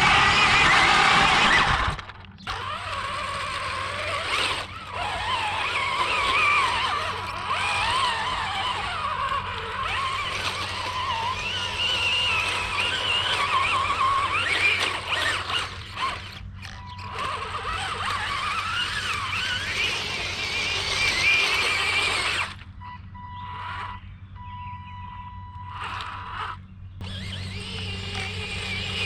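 Electric drive motors and gearbox of a Bwine Q111 RC tank whining as it drives. The pitch wavers up and down as the throttle trigger is worked. A louder stretch in the first two seconds cuts off suddenly, and about three quarters of the way through the whine drops away for a few seconds.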